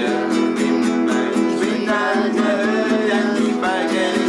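Acoustic guitar strummed in a steady rhythm between sung lines of a folk song, with a voice coming in on the melody about halfway through.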